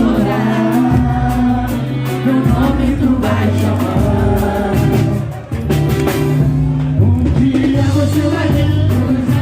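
Samba group playing with singing over a steady bass line and regular percussion, dipping briefly about halfway through.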